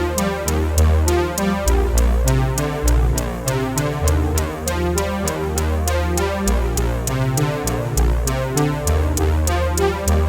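Electronic background music with a steady beat: quick even ticks about four a second over a heavy synth bass, with no singing.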